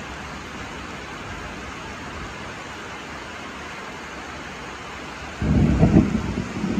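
Steady rain, then about five seconds in thunder breaks suddenly and loudly and keeps rumbling.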